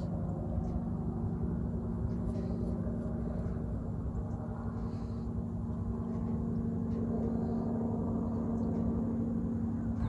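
A steady low drone with a held tone and lighter tones above it, swelling slightly in the second half.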